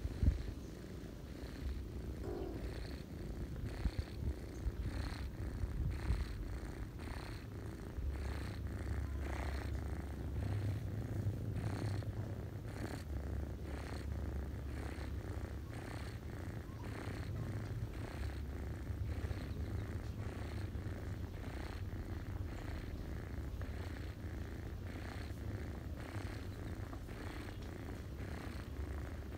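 Ginger domestic cat purring: a steady low rumble that grows louder about eight seconds in.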